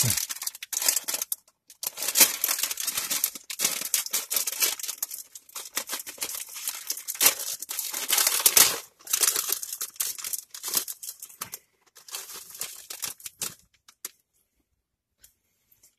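Plastic cookie-package wrapper crinkling and tearing as it is opened and a cookie is taken out. The rustling comes in irregular bursts for about thirteen seconds, then stops.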